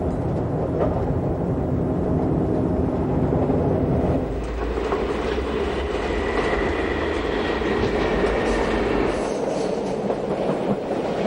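A train running along the track: a steady rumble of wheels on the rails.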